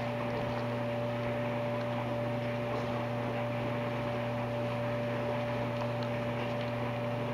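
Steady electrical mains-type hum, several tones held unchanged throughout, over a faint hiss.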